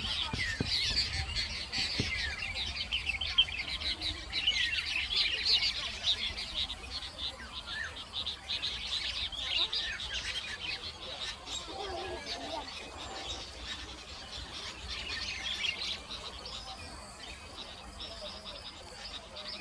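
Small birds chirping rapidly, many short high calls overlapping, busiest over the first half and thinning out towards the end.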